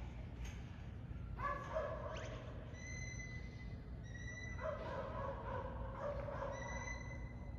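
A sheepdog handler's whistle commands: three held high whistle notes directing the working dog. Two lower wavering calls come in between them.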